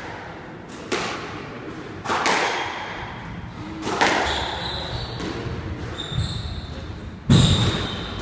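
Squash rally on a wooden-floored court: the ball is struck and cracks off the walls a few times, one to three seconds apart, each hit echoing. Shoes squeak on the floor in the second half, and the loudest and heaviest hit comes near the end.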